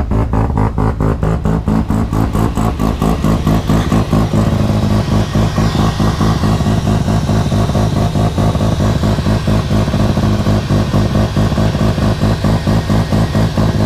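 Mazda RX-7's rotary engine idling, with a rapid, even pulsing beat.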